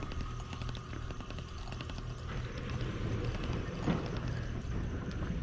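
Fishing reel being cranked in a fine, rapid ticking while a hooked fish is reeled in, over a steady low rumble.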